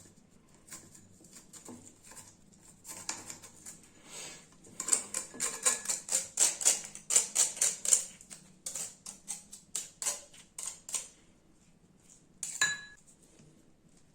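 A utensil clinking and scraping against a small dish, as in mixing: a run of quick strokes, about three a second, in the middle, then slower scattered taps, and a single ringing clink near the end.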